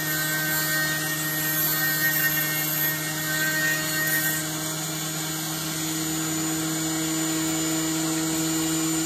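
Flex-shaft rotary tool running at high speed with a steady whine, drilling out the centre hole of a replacement chainsaw trigger to a larger diameter. The sound wavers a little in the first few seconds, then runs evenly.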